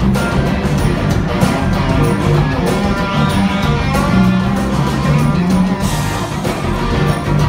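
Rock band playing live: electric guitars, drums and keyboard in a continuous full-band passage with a steady beat.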